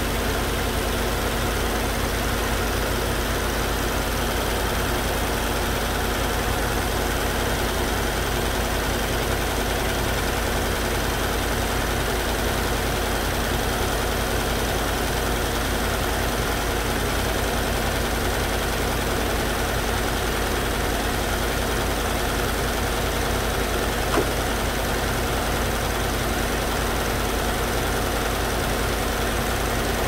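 2015 Ford F-150 engine idling steadily, running again after a crank-no-start caused by a loose fuse-panel terminal. One short click about three-quarters of the way through.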